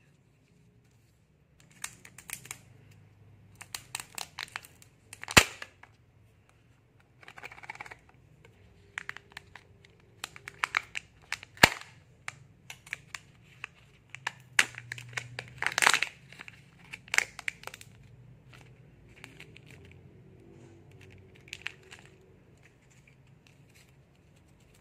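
Hands crinkling and tearing the foil and plastic packaging of a Kinder Joy egg, with scattered plastic clicks and two sharp plastic snaps, about five and twelve seconds in.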